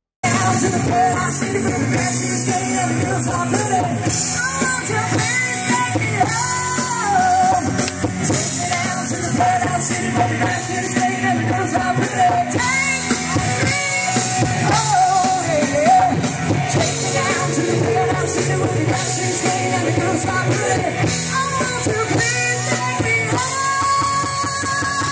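Live band playing on an outdoor stage, with a lead singer over guitar and drums.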